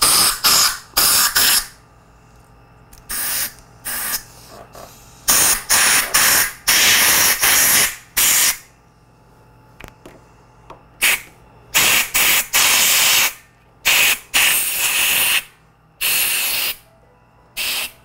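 Compressed-air blow gun giving repeated short blasts of hiss, some a fraction of a second and some over a second long, as air is blown under a new handlebar grip to float it onto the bar.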